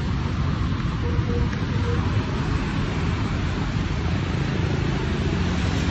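Steady street traffic noise from cars and motorbikes on the road alongside, a continuous low rumble.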